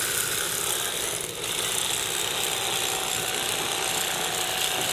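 Corded electric fillet knife running steadily, its serrated blades cutting through a sheepshead to fillet it.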